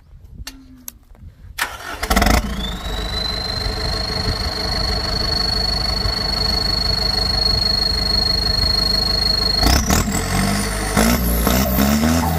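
Kubota M8808 tractor's diesel engine starts, then runs with a high, steady turbocharger whistle that climbs in as the turbo spools up. Near the end the whistle rises sharply higher as the engine is revved.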